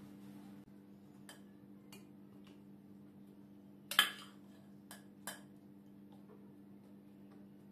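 Metal spoon clinking against a glass bowl and plate while scooping a wet yogurt-dressed salad: a few light clicks, the loudest about four seconds in, over a faint steady hum.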